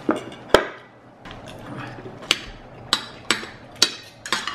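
Metal spoons and forks clinking against plates at a meal: scattered sharp clinks, with a heavier knock about half a second in as the loudest sound.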